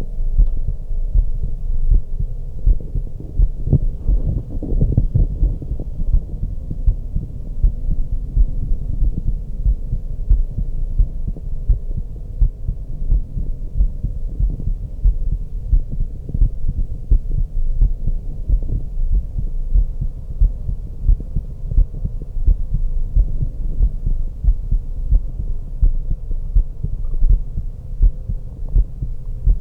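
A woman's heartbeat heard through a stethoscope: a steady rhythm of low, dull thuds, over a faint steady hum.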